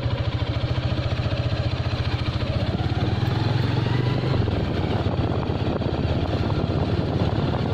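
An engine running close by with a loud, even chugging beat. Its speed rises a little and then drops back about four seconds in.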